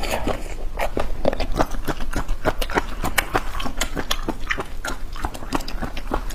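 Close-miked chewing of spicy braised squid: a dense, irregular run of wet mouth smacks and clicks, several a second.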